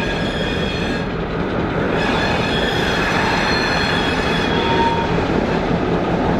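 Freight train rolling past with a steady rumble of wheels on the rails, with a brief thin wheel squeal about five seconds in.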